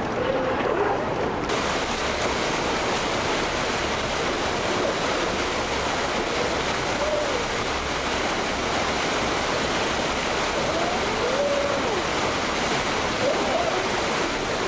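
Steady rush of churning whitewater pouring through the rapids below a dam. It turns brighter and hissier about a second and a half in.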